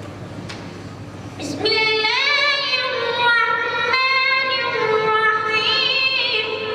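A high, clear voice singing a long ornamented phrase, sliding between notes and holding them with a slight waver. It comes in about a second and a half in over a background murmur.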